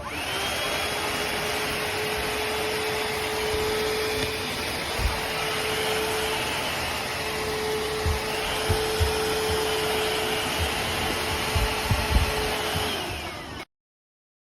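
Shark VacMop Pro cordless vacuum mop running: its motor spins up with a rising whine, runs steadily with the pitch wavering a little, and spins down near the end. Several low knocks come in the second half.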